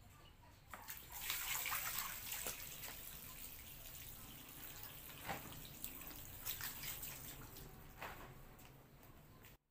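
Water pouring out of an open plastic pipe onto a concrete floor, a steady splashing stream that swells about a second in and then runs on evenly, with a few light taps. It is the continuous outflow of an improvised pump that runs without electricity.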